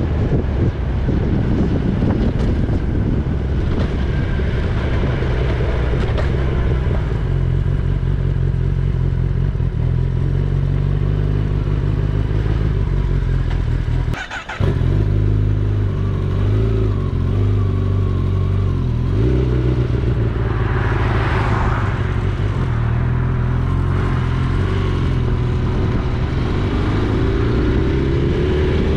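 Kawasaki Ninja ZX-10R's inline-four engine running steadily under way. It drops out briefly about halfway, then climbs in pitch near the end as it revs up.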